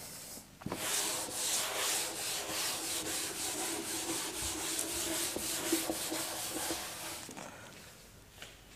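A chalkboard duster rubbed back and forth across a blackboard, wiping off chalk writing in quick, repeated strokes. The rubbing starts just under a second in and stops a little before the end.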